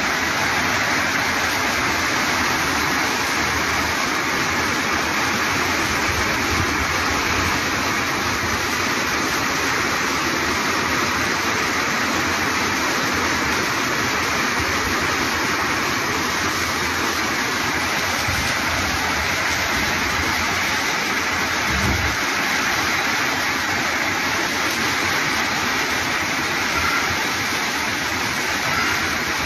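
Torrential rain pouring steadily onto roofs and paving: a dense, even hiss that holds at the same level throughout.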